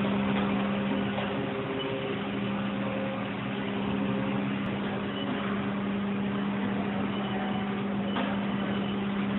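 Steady hum of shop machinery: a constant low drone with one strong unchanging tone and a hiss above it.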